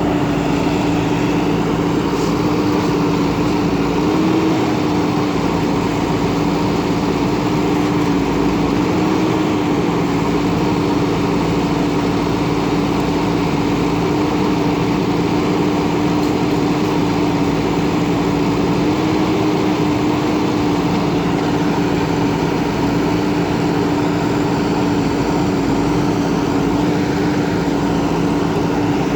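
Diesel engine of a JCB backhoe loader running steadily at high revs, its pitch rising slightly a few times.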